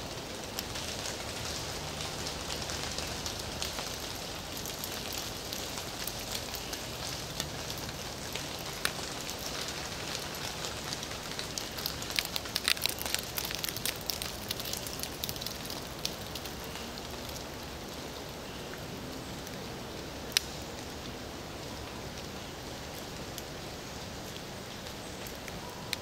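Light rain or drips falling from the canopy and pattering on forest leaves and ferns: a steady soft patter with scattered louder drops, busiest around the middle, and one sharp drop about twenty seconds in.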